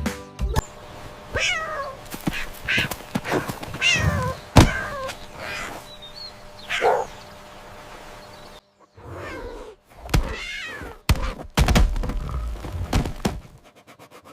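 A cat meowing again and again in short falling cries, mixed with sharp thuds and knocks. The loudest thud comes about halfway through the first five seconds, and a run of thuds follows near the end.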